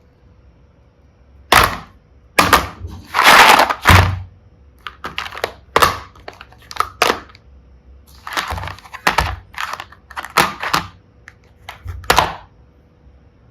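Small plastic blocks and tiny heart and seashell pieces clicking and clattering as they are picked through by hand, with a longer crackling rustle about two to four seconds in.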